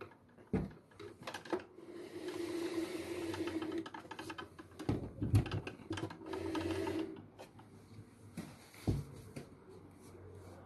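Vacuum cleaner motor running with a steady hum and hiss in two spells of a couple of seconds each. Between and around them come several sharp knocks and bumps.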